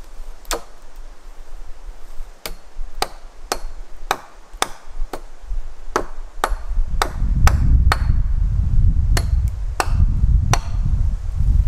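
Sharp knocks of wood being struck, about sixteen in all, in runs of roughly two a second. A loud low rumble comes in about seven seconds in and carries on under the knocks.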